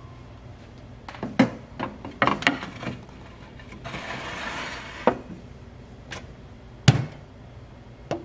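Glass baking dish clinking and scraping as it is slid onto the rack of a countertop oven, with several knocks, a loud knock near the end as the appliance is shut, and a last click.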